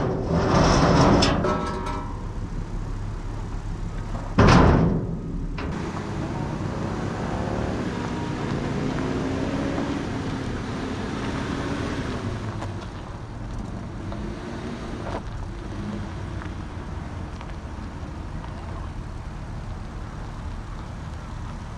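Toyota Hilux's 4Y four-cylinder petrol engine running, its pitch rising and falling as it is driven, with a loud burst of noise about four and a half seconds in.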